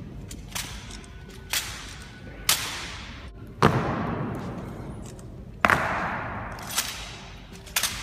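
Ceremonial honor guard drill in a large stone hall: a series of sharp, echoing cracks and thuds from boots stamping and rifles being struck, about one a second, the loudest about three and a half and five and a half seconds in.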